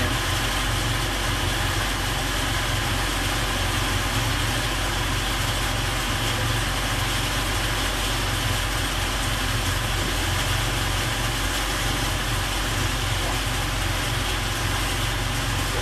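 Engine of a high-pressure drain jetting machine running steadily at a constant speed, with an even rushing noise over it.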